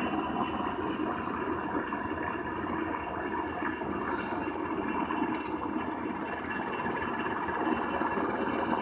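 Army helicopter hovering low overhead, its rotor and turbine noise steady and dense.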